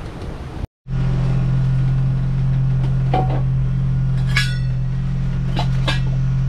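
A steady, loud low mechanical drone that starts about a second in and stops suddenly, with a few light clicks and a short metallic clink over it a little past the middle.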